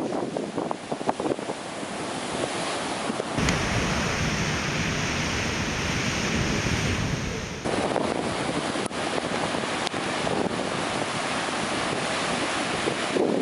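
Surf from a typhoon swell breaking and washing, with wind buffeting the microphone. There is a stretch of heavier low rumble from about three to eight seconds in.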